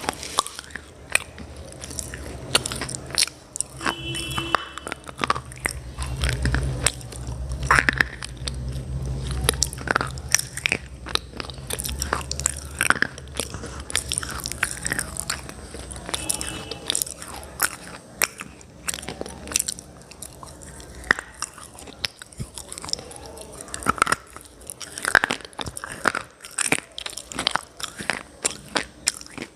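A person biting and chewing hard, chalky pieces: a dense run of sharp, irregular crunches and snaps with chewing between bites. A low hum sits underneath through roughly the first half.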